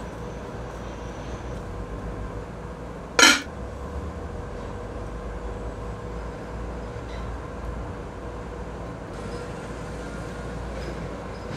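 A metal pot lid clanks down once onto a metal cooking pot about three seconds in, the loudest sound here, over a steady low rumble.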